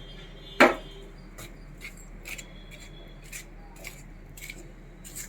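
A single sharp clink of a kitchen utensil a little over half a second in, then faint, scattered light scraping and tapping as a ghee-and-ground-dal mixture is worked in a vessel.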